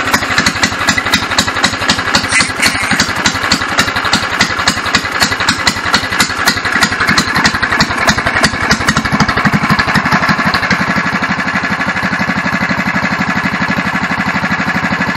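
Go-kart's single-cylinder engine running through its newly modified exhaust pipe, just after starting. It fires in loud, uneven pulses for about the first ten seconds, then settles into a steady idle.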